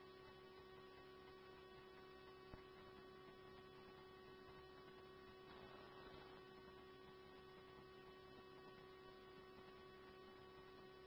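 Near silence: a faint, steady electrical hum on the radio feed between transmissions, with one tiny click about two and a half seconds in.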